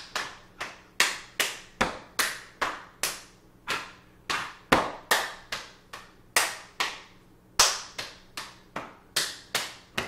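A stepping routine performed at full speed: a steady rhythm of foot stomps on a hardwood floor, hand claps and hand slaps on the body, about two and a half strikes a second with a brief pause a little past the middle. Each strike rings briefly in the room.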